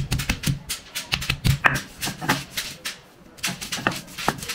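Ingredients being pounded and ground with a stone on a flat grinding stone for vorta: an irregular run of sharp knocks and scrapes, several a second.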